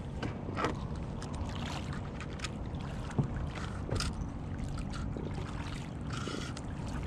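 Wind rumbling on the microphone over water lapping and trickling against a plastic fishing kayak's hull, with scattered small knocks and a couple of brief splashy hisses.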